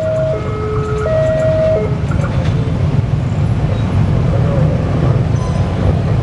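Level-crossing warning signal sounding two alternating tones, high then low, that stops about two seconds in, over the loud, steady rumble of a passing train.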